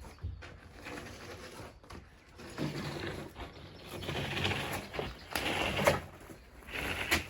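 Workshop handling noises of timber and board being worked: irregular scraping and shuffling with a few sharp knocks, the loudest in the second half.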